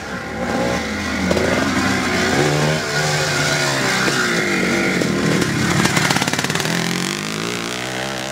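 Vintage twin-shock motocross bike engine revving up and down as it races along the track, its pitch rising and falling with the throttle; it is loudest about six seconds in.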